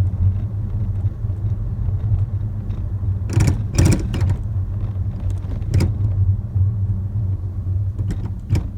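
A Toyota Estima (ACR50) under a steady low road rumble, with sharp knocks and rattles of the kind traced to a faulty rear-left TEIN coilover. A quick cluster of knocks comes about three and a half seconds in, another single knock follows, and two more come near the end.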